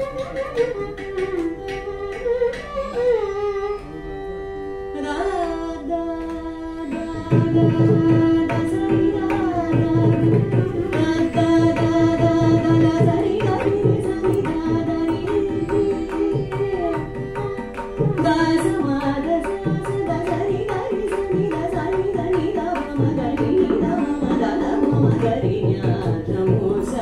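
Carnatic classical music: a sung melodic line with slides and ornaments, accompanied by mridangam. The mridangam's dense drum strokes come in strongly about seven seconds in and keep going under the melody.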